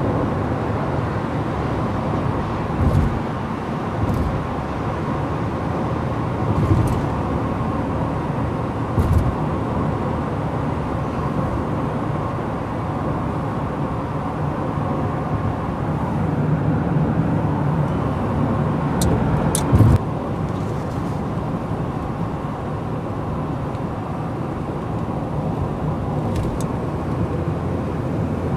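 Steady road and engine noise of a car at highway speed, heard from inside the cabin: an even low rumble. Several brief thumps and knocks break through it, the loudest a sharp click about twenty seconds in.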